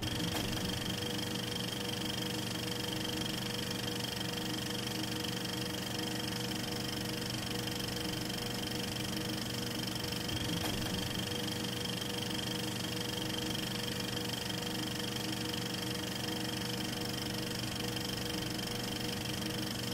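Steady mechanical whir of a 16mm film mechanism running, an even machine sound with several constant tones that does not change.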